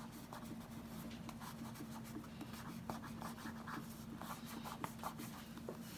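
Fingertip rubbing over a frosted shrink-plastic bead, smearing colored-pencil pigment to blend the shading: faint, quick, repeated soft rubbing strokes. A faint steady hum runs underneath.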